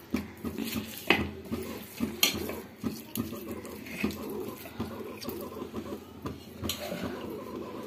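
A hand kneading and squeezing sticky rice-flour dough in a stainless steel plate: soft wet pressing and scraping against the metal, with a few sharp clicks of the plate.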